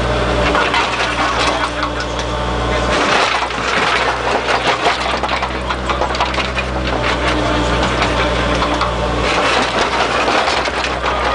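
Bobcat mini excavator's diesel engine running, heard from inside the cab as the joystick is worked. Twice, about three seconds in and again near the end, the steady engine note weakens under a stretch of rough crackling noise.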